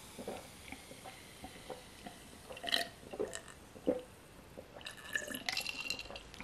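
Quiet sipping and swallowing of a sparkling drink from a glass mug, with ice clinking against the glass a few times, most of it near the end.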